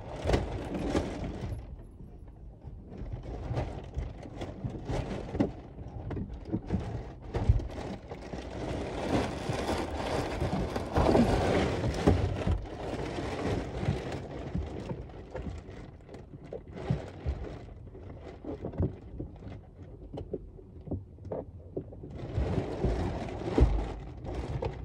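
Protective plastic film being peeled, pulled and crinkled off a new car's interior trim, with scattered knocks and thumps from handling the car's fittings. The rustling is loudest around the middle.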